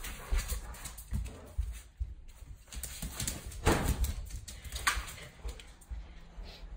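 A dog's paws and claws tapping and scrabbling on a hard floor as it moves about, with irregular low thumps of footsteps and two louder knocks past the middle.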